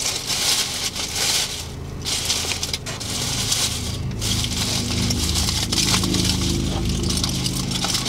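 Crackling and crushing of a foil food tin being handled during eating, with a steady low hum underneath that grows louder about halfway through.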